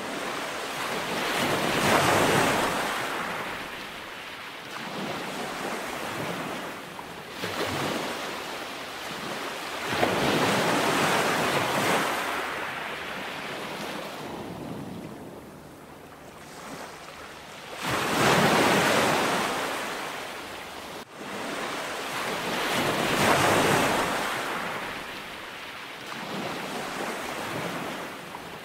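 Heavy ocean surf crashing on a rocky lava shoreline, the noise swelling with each breaking wave a few seconds apart, with wind buffeting the microphone.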